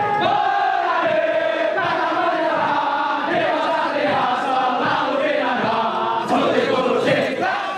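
A large group of men chanting and singing together in unison.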